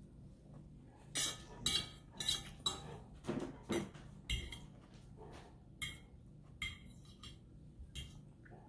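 Cutlery clinking and scraping against a plate: a quick run of about a dozen short scrapes and clinks, starting about a second in, as the last of the food is scraped up.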